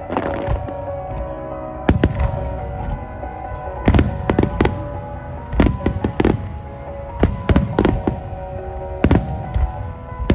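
Starmine fireworks display: aerial shells bursting with sharp bangs every second or two, some in quick succession, over music with sustained notes.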